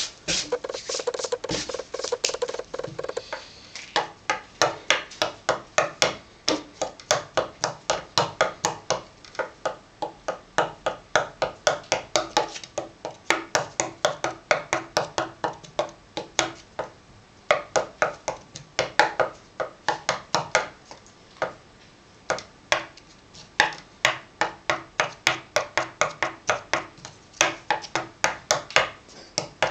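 A hard biscuit stabbed rapidly on a tabletop between spread fingers, knife-game style: long runs of sharp taps at about four a second, broken by a few short pauses.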